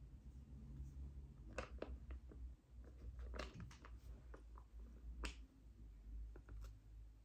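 Faint handling sounds: a scattering of short crinkles and taps, about seven in all, from a sheet-mask sachet being handled.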